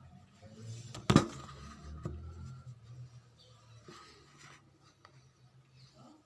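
Kitchen handling sounds: a hard object is set down sharply on a counter about a second in, followed by a lighter click a second later, over a faint low hum.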